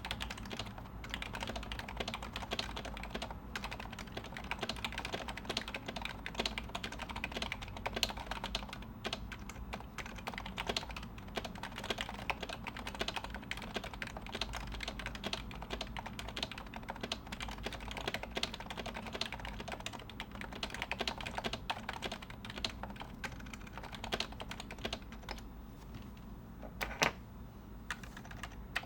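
Continuous fast typing on a 2014 HHKB Pro 2 Topre keyboard with 35 g domes and silencing rings, fitted with cherry-profile GMK keycaps on MX sliders. The keystrokes are muted, which the owner finds almost a bit too silenced. One keystroke about 27 seconds in is louder than the rest.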